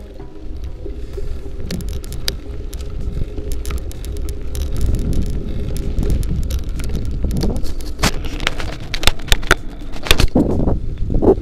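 Bicycle rolling along a trail, with rattling and crackling clicks over a low rumble that grows steadily louder.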